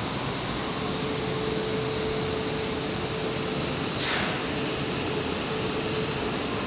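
E5 and E3 series Shinkansen train pulling out of the station, a steady running rumble and hiss with a faint steady hum. A brief falling whoosh comes about four seconds in.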